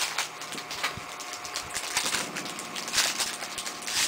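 Hockey trading cards and their foil pack wrapper being handled: an irregular run of short rustles, crinkles and card clicks as cards are flipped through and a pack is opened.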